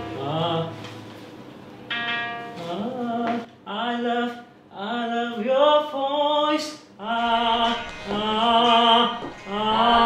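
A solo voice singing a slow melody in long held notes, with a few short breaks between phrases.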